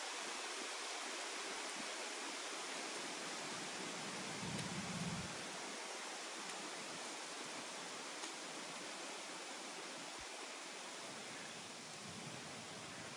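Steady, even outdoor background hiss, with a brief low rumble about four and a half seconds in.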